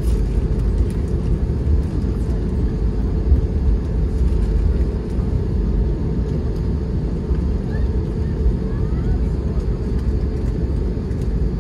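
Steady low rumble inside the cabin of an Airbus A320neo as it taxis, from its engines at taxi power and its wheels rolling over the taxiway.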